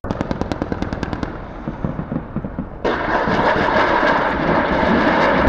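Attack helicopter's automatic cannon firing: a rapid burst of shots at about ten a second, followed about three seconds in by a louder, dense continuous rattle of fire.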